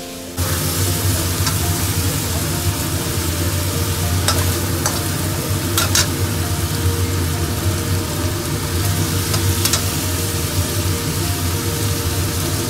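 Shrimp sizzling in hot oil as they are stir-fried in a wok, beginning abruptly a moment in. A spatula clicks and scrapes against the wok a few times.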